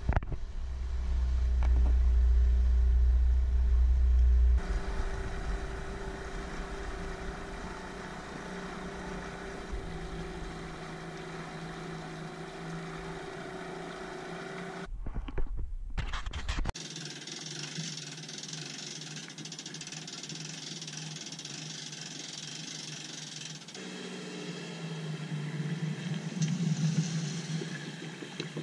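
Small outboard motor running steadily as it pushes an aluminium dinghy along, with a heavy low rumble for the first few seconds. After a cut about two-thirds of the way in, water splashing and lapping takes over.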